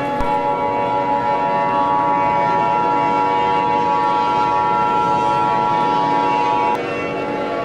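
The Emergency Alert System attention signal: a steady, shrill two-tone beep held for about six and a half seconds, then cutting off abruptly. A steady drone of several held tones sounds underneath and goes on after it.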